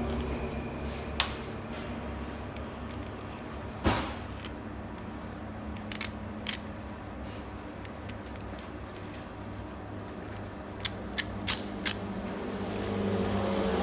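Zippo lighters being handled: scattered sharp metal clicks and taps, with a quick run of four clicks near the end, over a low steady hum.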